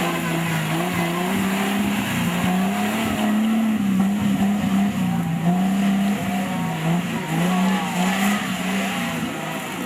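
Off-road 4x4's engine working under load, its revs rising and falling every second or so, with scattered knocks.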